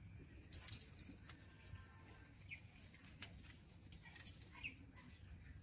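Near silence with a few faint, crisp cuts as a kitchen knife slices through a banana leaf, and short, faint bird chirps about halfway through and near the end.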